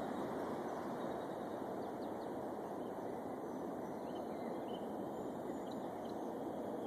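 Steady outdoor background noise, with a few faint, short bird chirps scattered through it.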